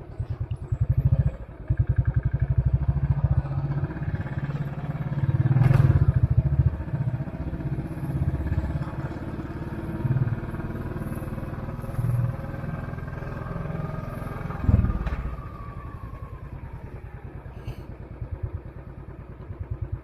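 Royal Enfield Classic 500's single-cylinder engine thumping under way, its pulse swelling and easing with the throttle and loudest about six seconds in. A sharp thump cuts through near fifteen seconds.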